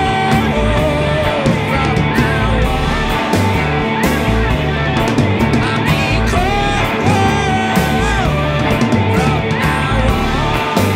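Alternative-rock band playing live: guitar, double bass and drums, with a gliding melody line over a steady beat.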